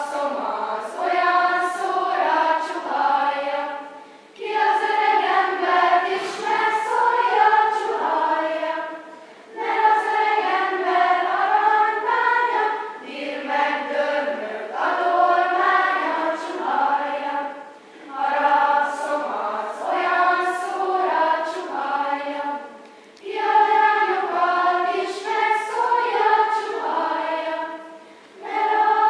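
Children's choir singing without accompaniment, in phrases of a few seconds each with brief pauses between them.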